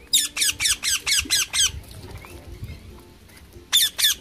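A cow being milked by hand: jets of milk squirting into a metal pail, about four sharp squirts a second in two runs, with a pause of about two seconds between them.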